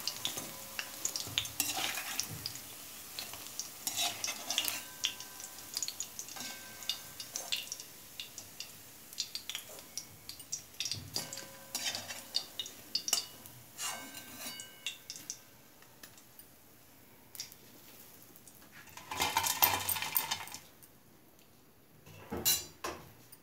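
Metal slotted spoon scraping and clinking against an aluminium kadhai and a wire-mesh strainer as fried pakoras are lifted out of the hot oil, with a faint sizzle of oil underneath. A louder metallic clatter of about a second comes a little before the end.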